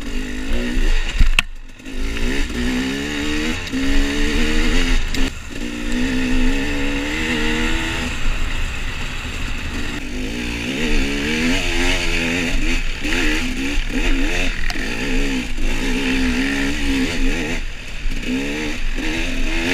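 KTM 300 XC-W two-stroke dirt bike engine heard from on the bike, revving up and down with the throttle as it rides a trail. The engine note drops out briefly a little over a second in.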